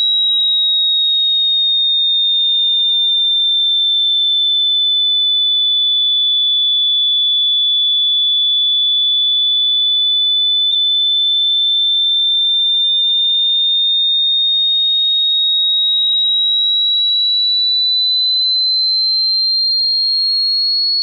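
A single loud, high-pitched pure electronic tone that slowly sinks in pitch over the first few seconds, holds, then slowly rises again in the last third.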